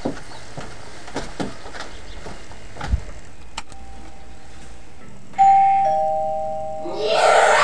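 Footsteps on wooden porch steps, then a two-tone ding-dong doorbell chime: a high tone and then a lower one, each ringing and fading. Near the end comes a loud, noisy sound lasting about a second and a half.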